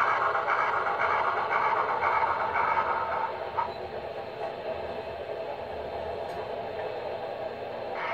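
HO scale model steam locomotive's sound effects playing through its small on-board speaker. The sound drops in level about three and a half seconds in, as the locomotive stops, and carries on more quietly and steadily.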